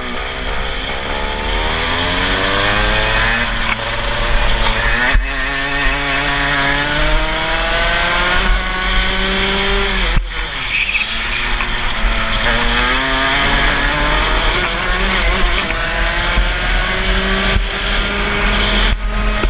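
Rotax kart's single-cylinder two-stroke engine heard from the driver's seat, rising in pitch as it accelerates and dropping sharply each time the throttle is lifted for a corner, three times over.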